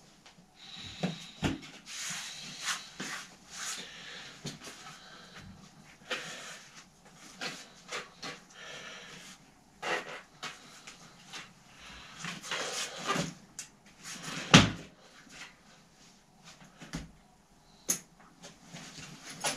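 Hands working a replacement tyre onto a bicycle wheel rim: scattered clicks, knocks and rubber rubbing, with one sharp knock about two thirds of the way through.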